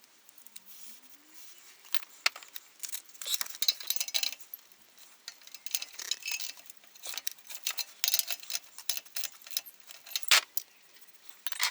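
Spanner and metal tools clinking and clicking irregularly against a Toyota Celica's exhaust bolt and fittings, starting about two seconds in, as the bolt is worked at without giving: it is seized.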